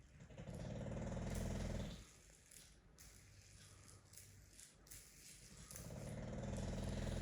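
English bulldog snoring loudly: two long, fluttering snores, each about two seconds, one at the start and one near the end, with a fainter breath between them.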